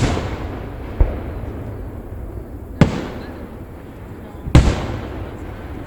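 Aerial firework shells bursting: four sharp booms about one to two seconds apart, each trailing off in a fading rumble.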